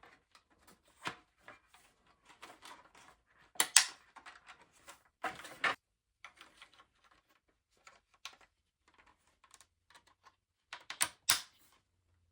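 Small lamp parts being handled and bracket clips fitted, making irregular clicks and taps, loudest about four seconds in and as a quick pair near the end.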